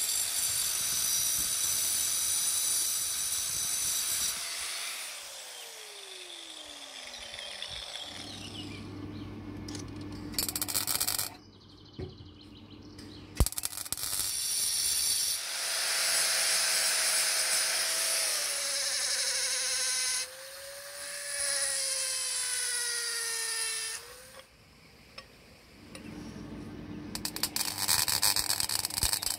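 Electric angle grinder running, then spinning down with a steady falling whine about five seconds in. Later a power tool runs again with a wavering pitch, and near the end there is the dense crackle of arc welding.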